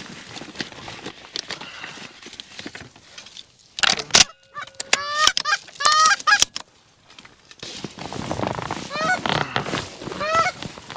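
Canada geese honking: a quick run of rising-and-falling honks about five to six and a half seconds in, and more honks starting again near the end. Light rustling runs underneath, with a loud brief burst of noise just before the first honks.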